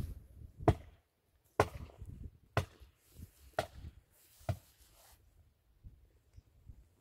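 Chopping strikes on wood, five blows about a second apart, the first the loudest.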